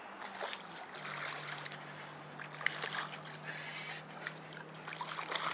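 Water splashing and sloshing, with scattered sharp clicks and, from about a second in, a low steady hum.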